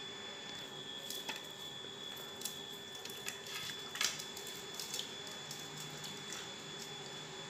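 Faint splashing and sloshing of water in a steel bowl as a hand scrubs potatoes, with a few soft splashes and knocks scattered through, the clearest about four seconds in, over a steady faint hum.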